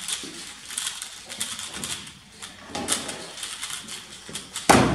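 Rapid plastic clicking and clacking of a 3x3 speed cube being turned fast by hand, with a loud thump near the end.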